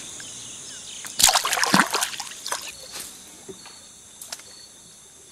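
A released fish splashing in the water as it kicks free of the hand: one loud splashing burst about a second in, followed by a few smaller splashes and drips. A steady high hiss runs underneath.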